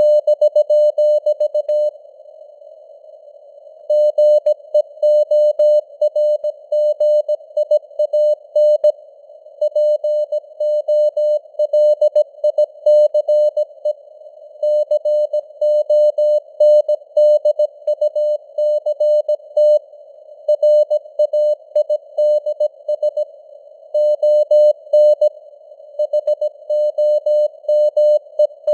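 Morse code (CW) sent at 17 words per minute: a single steady beep tone keyed on and off in dots and dashes, over faint simulated radio hiss close in pitch to the tone. There is a pause of about two seconds near the start, then continuous sending.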